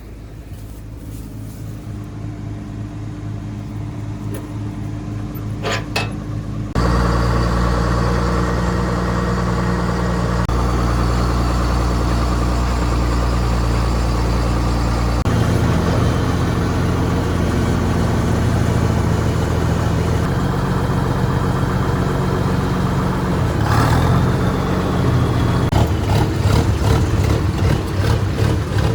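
Diesel farm machinery engine running steadily, in several joined stretches, the pitch and loudness jumping suddenly at each join; it is quieter for the first several seconds, then much louder. A short clatter comes a few seconds before the end.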